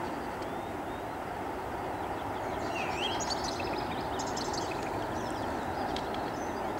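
Steady distant roar of an Airbus A330's jet engines as the airliner rolls out along the runway just after touchdown. Small birds chirp a few times over it.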